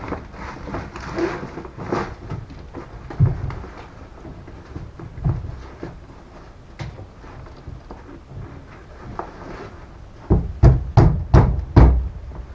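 Scattered knocks and clunks of tools and metal car parts being handled while a Citroën 2CV is taken apart, then a quick run of heavy thumps near the end.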